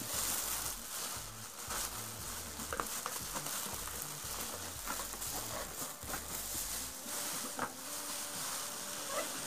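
Clear plastic wrapping crinkling and rustling as it is handled and pulled off the steamer, with small crackles and clicks throughout.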